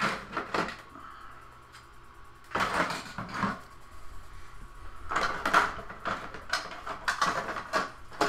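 Small hard plastic toy parts (G.I. Joe vehicle missiles and pieces) clicking and clattering as they are rummaged through and picked up by hand. The clatter comes in three spells: briefly at the start, again about two and a half seconds in, then almost continuously over the last three seconds.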